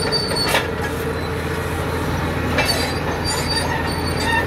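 Crawler bulldozer working as it pushes dirt: a steady diesel engine under load, brief high-pitched squeals from its steel tracks, and two sharp clanks.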